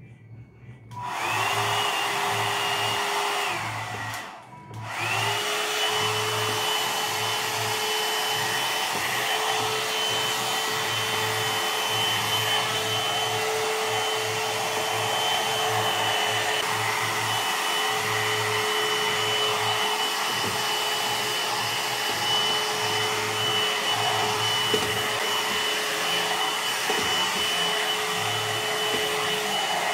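Knock-off one-step hot-air dryer brush (a non-original copy of the Revlon model) switched on about a second in, cutting out briefly just after four seconds, then running steadily with a rushing blow and a high motor whine.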